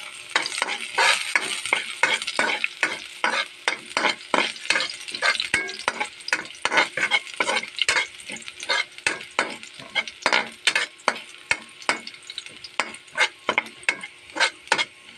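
Minced garlic sizzling in a frying pan while a spatula stirs it, scraping against the pan in a steady rhythm of about two to three strokes a second.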